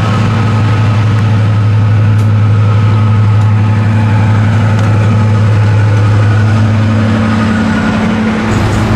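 Class 55 Deltic diesel locomotive D9016, its twin Napier Deltic two-stroke engines running as it passes close by: a loud, steady deep drone with a fainter high whine above it.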